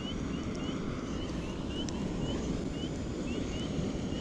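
Steady low rumble of wind on the microphone, with faint short chirps repeating two or three times a second above it.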